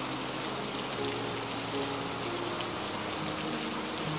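Steady rain ambience, an even hiss of rainfall, with soft held low music notes underneath that change every second or so.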